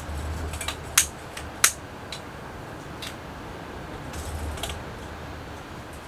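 Hurricane lanterns being handled: a string of sharp, irregular clicks and clinks as the metal wick knob and fittings are worked, the loudest two about a second and a second and a half in, with a low knock of handling now and then.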